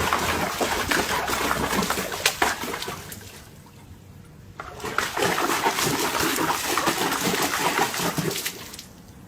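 Water splashing and sloshing as a retriever puppy paddles in a pool, in two spells with a short lull between them.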